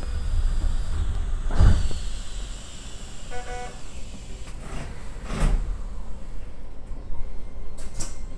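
Inside the driver's cab of a Hokuso Railway 7500-series electric train standing at the platform before departure: a low rumble with two dull thumps, the louder one under two seconds in, and a brief electronic chime near the middle. Sharp clicks come near the end as the driver's controller is moved from brake to power.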